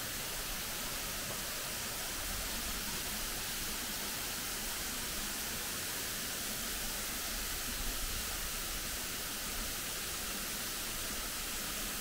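A thin waterfall falling as spray down a rock face: a steady, even hiss of water.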